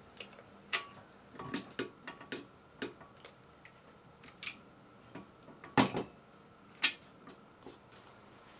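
Clicks and knocks from a KitchenAid tilt-head stand mixer as its head is tilted up and lowered and the newly fitted tilt lever and latch are worked, with two louder clunks a little past the middle.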